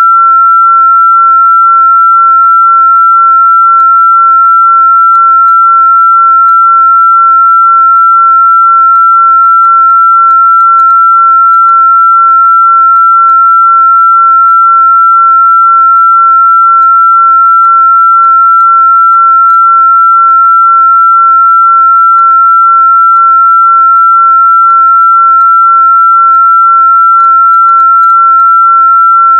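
A continuous electronic pure tone at a single high pitch, loud and perfectly steady, with no change in pitch or level.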